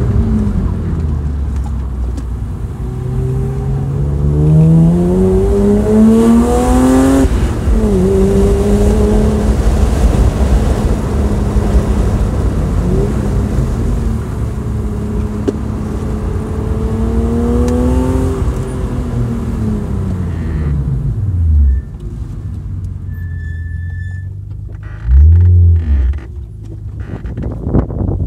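BMW E36 M3's S50B30 3.0-litre straight-six through a Supersprint race exhaust, heard from inside the cabin under way. The revs climb, drop sharply at a gearchange about seven seconds in, and pull up again. Past two-thirds of the way through the engine comes off the throttle and the revs fall away, with a short loud burst of revs near the end.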